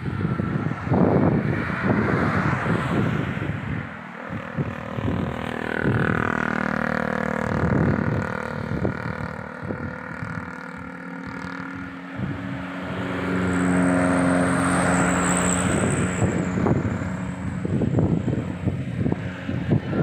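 Road traffic on a two-lane highway: cars and motorcycles going by, their engine hum swelling and fading as each passes. Wind gusts on the microphone near the start and end.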